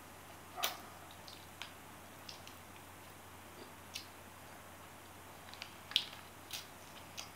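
Soft, irregular lip smacks and clicks of mouths licking and sucking on ice cream bars over a faint room hum, the loudest about six seconds in.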